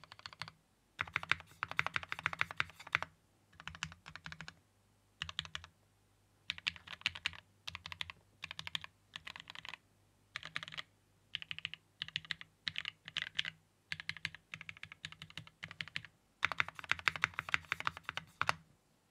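Typing on a Geonworks F1-8X mechanical keyboard with lubed and filmed Gateron Ink Black v2 linear switches, an aluminium plate and GMK doubleshot ABS keycaps: bursts of rapid keystrokes separated by short pauses, with the longest runs of typing near the start and near the end.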